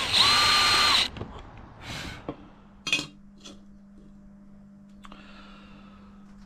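Cordless brushless drill running at speed with a steady whine for about a second, then stopping suddenly. It is being used to mark a hole through an angle bracket. A few light knocks and clicks follow.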